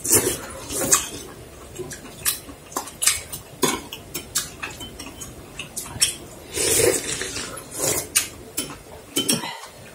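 Metal chopsticks and spoons clinking and tapping against bowls, plates and a stainless steel pot during a meal. The clicks come irregularly, several each second.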